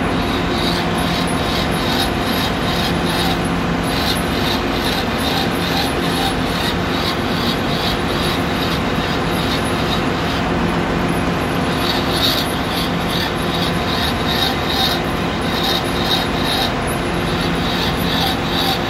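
Metal lathe running, its chuck spinning a brass fitting as the tool turns it down: a steady machine hum with a high rhythmic ticking about three times a second.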